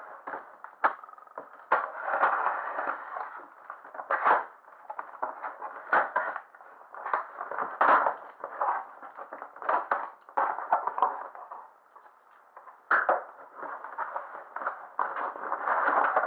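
Cardboard shipping box being handled and opened: knocks and scrapes as it is turned over, packing tape slit with a blade, and the flaps pulled open, in a run of short sharp knocks and rustles with a quieter stretch about two thirds through.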